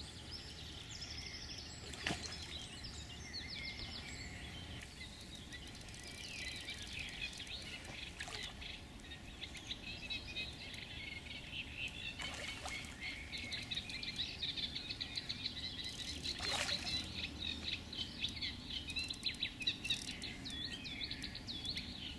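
Small birds singing, with fast chattering trills that grow busier in the second half, and a few brief soft knocks.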